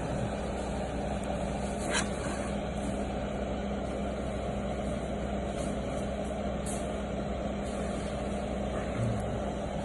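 Steady background rumble with a constant low hum, and one faint click about two seconds in.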